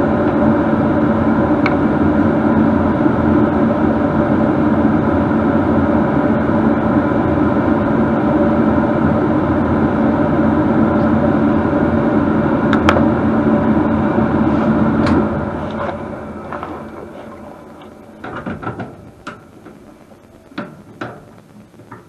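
An electric motor running with a loud, steady hum, switched off about fifteen seconds in and winding down over a few seconds. Scattered clicks and knocks of handling follow.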